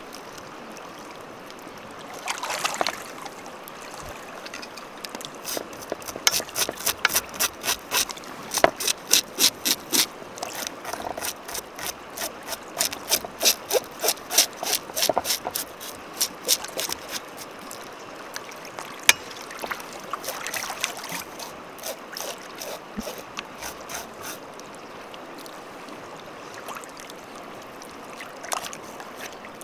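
Mountain stream flowing steadily, with a run of quick, even clicks, about two or three a second, lasting roughly ten seconds in the middle.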